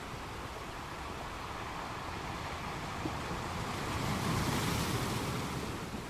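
Sea waves washing onto a beach and breaking against rocks: steady surf, with one wave swelling up about four seconds in and falling away near the end.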